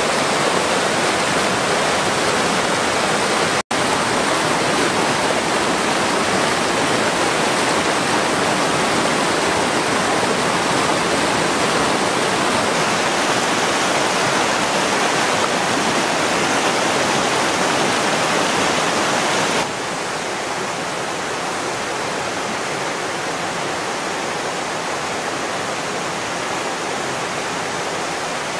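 Continuous rushing of fast, churning stream rapids, a steady even noise with no other sounds. It cuts out for an instant a few seconds in, and drops to a somewhat quieter rush about two-thirds of the way through.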